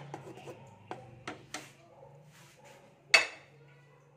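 Metal cookware clinking: a few light knocks, then one sharp, ringing clink about three seconds in, over a low steady hum.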